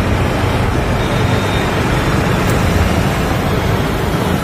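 Steady rumble of riding a two-wheeler through traffic: wind buffeting the microphone, mixed with engine and road noise.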